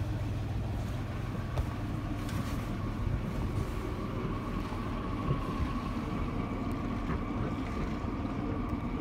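Southerly 115 yacht's inboard diesel engine running steadily, with raw cooling water being discharged from its exhaust, the sign that the engine's water cooling is flowing.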